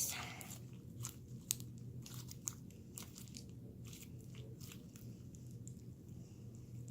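Crunchy slime being squeezed and worked by hand, giving irregular small crackles and pops that thin out after the first few seconds, over a steady low hum.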